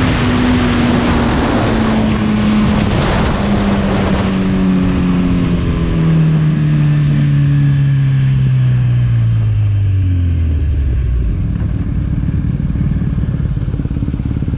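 Kawasaki Z1000 inline-four with a full Arrow exhaust system. The engine revs fall steadily as the bike rolls off the throttle and slows, and it settles into a low, steady idle about eleven seconds in. Wind noise on the microphone is heavy at first and fades as the speed drops.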